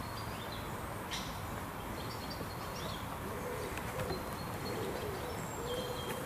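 Birds calling in the park trees: a dove cooing low and wavering from about halfway through, with brief high chirps from small birds over it.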